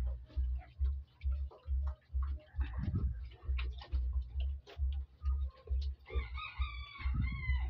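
A sow grunting in a steady low rhythm, about two to three grunts a second: the nursing grunts of a sow letting her piglets suckle. A rooster crows once, starting about six seconds in.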